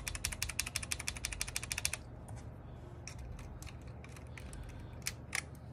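Keys on an Akko MOD001 aluminium mechanical keyboard being typed rapidly, a fast even run of clacks, about fifteen a second, for about two seconds. Then only a few scattered keystrokes.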